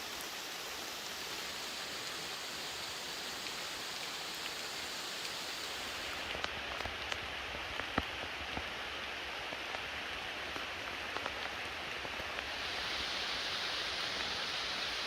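Steady rain falling through forest, a continuous hiss with scattered louder drops striking close by. The loudest drop comes about eight seconds in. The hiss grows a little louder and brighter near the end.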